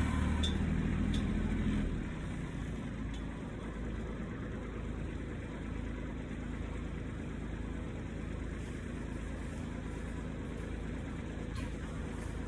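An engine running at idle with a low, steady hum. It drops in level about two seconds in and carries on as a quieter low rumble.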